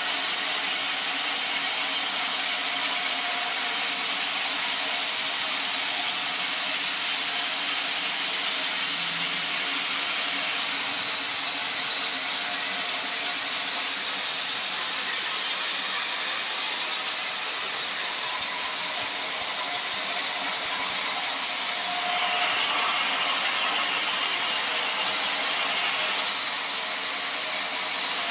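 Sawmill machinery running steadily: a dense, even noise heavy in the upper range, getting slightly louder about three-quarters of the way through.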